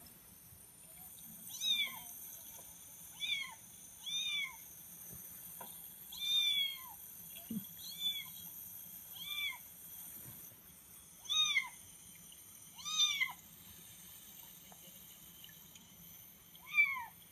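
Recorded cat meows played back to a dog: about nine separate meows, each rising then falling in pitch, spaced one to three seconds apart. The last one is the loudest.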